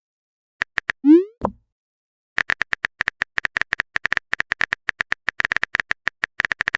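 Messenger-app sound effects: a few clicks and a short rising bloop with a soft thump about a second in, like a message being sent, then from about two and a half seconds a fast run of phone-keyboard typing clicks, roughly ten a second.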